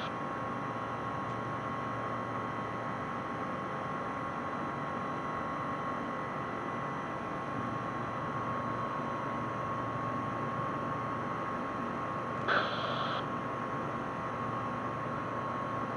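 Rotax 912 engine of a Bristell light sport aircraft running at full climb power just after takeoff, heard as a steady drone with a fixed whine through the cockpit headset intercom. A short burst of noise about twelve and a half seconds in.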